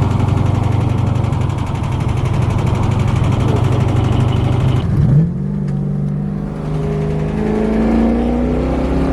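Car engine heard from inside the cabin, running steadily at cruise. About five seconds in it lets off briefly, as at a gear change, then the engine note climbs steadily as the car accelerates.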